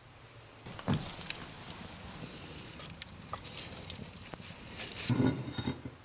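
Hot clay pots being lifted from a kiln on a wooden stick: scattered light clinks, knocks and scrapes of fired clay against the stick and kiln shelf. There is a sharp knock about a second in, and a louder cluster of handling noise near the end.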